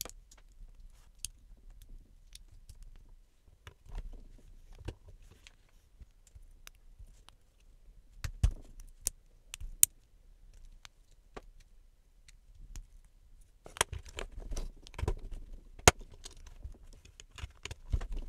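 LEGO bricks handled and pressed together by hand: scattered small plastic clicks and snaps. A busy run of clicking comes about three-quarters through, with the loudest snap at its end.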